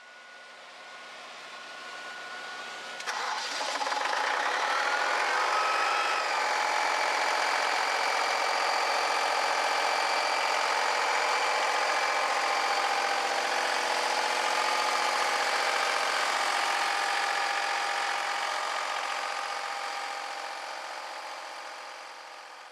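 Atlas Copco XAS67 portable diesel air compressor running. It grows louder over the first few seconds, jumps up sharply about three seconds in with a shift in pitch over the next few seconds, then runs steadily before fading away near the end.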